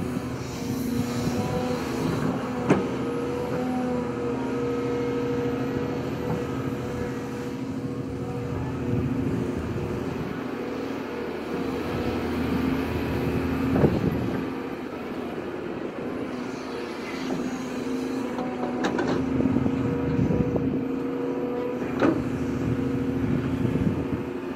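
Volvo EC240B crawler excavator's diesel engine and hydraulics running under load as it digs and dumps soil. The steady hum eases off twice, and there are a few sharp knocks.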